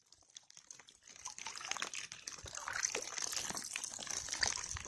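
Rain falling on a lake surface: a dense patter of drops over a steady hiss, fading in over the first couple of seconds.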